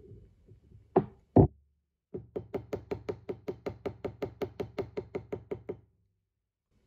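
Small jewellery hammer striking 18-gauge copper wire on a metal anvil block, flattening the top of a wire-wrapped mushroom. Two hard blows come about a second in, the second the loudest, then a quick, even run of lighter ringing taps, about seven a second, for some three and a half seconds.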